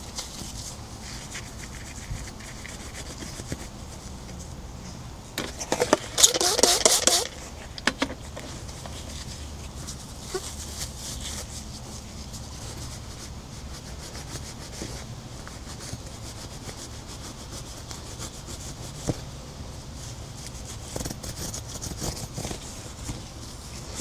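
Scrubbing and rubbing on a surface, with one loud burst of rapid back-and-forth strokes about six seconds in and fainter scrubbing and clicks elsewhere, over a steady low hum.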